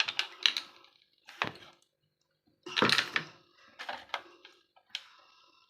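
Irregular knocks and clatters of soap-mould containers being handled and set down on a hard surface, about half a dozen, the loudest about three seconds in.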